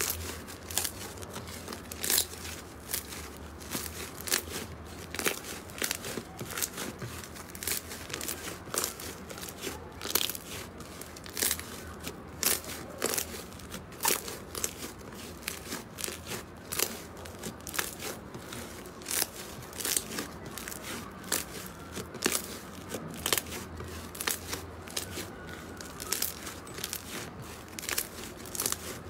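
Pink foamy slime squeezed and kneaded by hand, making a steady run of sharp crackles and pops, several a second, as air trapped in it bursts.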